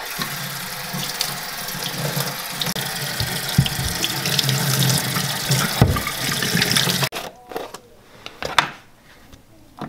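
Water running from a sink faucet into a utility sink, a steady splashing rush that stops abruptly about seven seconds in. After it, a few faint knocks.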